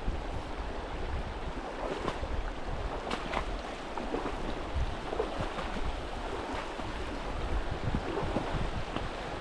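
Mountain creek water rushing steadily, with wind rumbling on the microphone and a few faint knocks.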